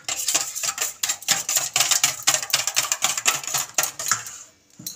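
Wire whisk beating eggs and sugar in a stainless steel bowl: a rapid run of metal clicks and scrapes of the whisk against the bowl, stopping about four and a half seconds in. The eggs are being beaten until the sugar dissolves.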